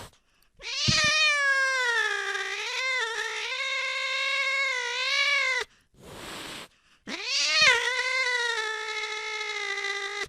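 Domestic cat giving two long, drawn-out meows, the first about five seconds and the second about three, their pitch wavering up and down, with a short breathy sound between them.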